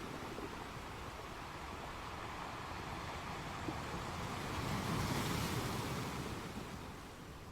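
Sea waves washing ashore as steady surf. One wave builds to its loudest about five seconds in, then falls away near the end.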